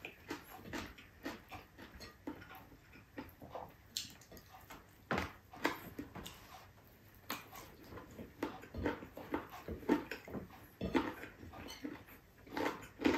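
Close-miked eating noises: chewing and lip-smacking of a person eating rice and meat by hand, an irregular run of short wet smacks and clicks.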